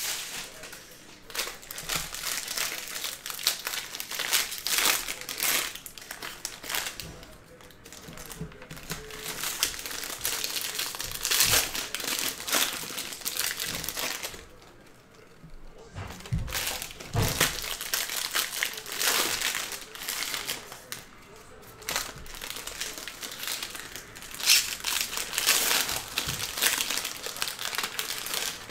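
Wrappers of Bowman Draft Super Jumbo baseball card packs crinkling as the packs are opened one after another, with cards handled and stacked. It comes in crackly bursts with a couple of short lulls.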